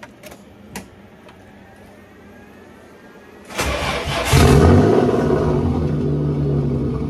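Nissan RB25DET turbocharged straight-six in a 240SX cranked over on the starter after a few clicks, catching about three and a half seconds in and running steadily for about three seconds. This is its first start after the engine swap.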